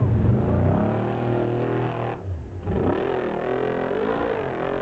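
Formula Offroad car's engine revving hard, its pitch rising and falling; it drops off briefly about two seconds in, then revs up again.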